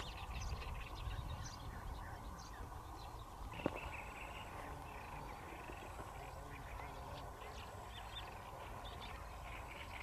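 Wetland birds calling at a lake: many short, scattered chirps over a steady low rumble, with one sharp click a little under four seconds in.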